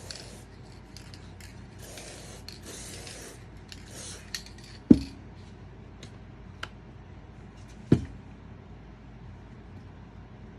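Aerosol silicone spray hissing in short bursts, the longest about two seconds in, lubricating a rubber vent window seal. Then two sharp knocks about three seconds apart, with a small click between them.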